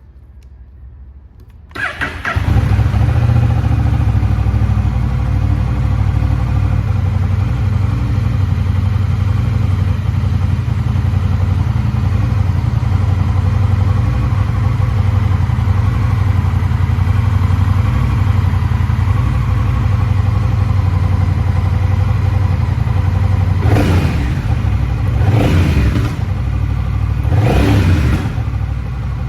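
Honda Rebel 1100 DCT's parallel-twin engine, breathing through an aftermarket Moriwaki silencer, starting about two seconds in and settling into a steady idle. Near the end the throttle is blipped three times, the revs rising briefly and falling back to idle.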